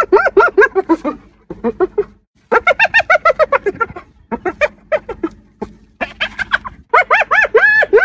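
Spotted hyena giggling: bouts of quick yelping notes, several a second, each rising and falling in pitch, broken by short pauses. The notes climb higher near the end.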